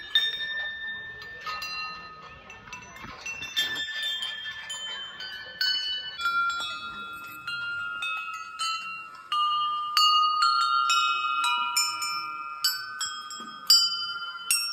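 Rows of hanging brass temple bells rung by hand one after another, each one ringing on as the next is struck. The strikes come slowly at first, then quicken to two or three a second about halfway through.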